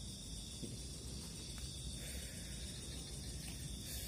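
Steady chorus of night insects chirring in several even high bands, over a low rumble.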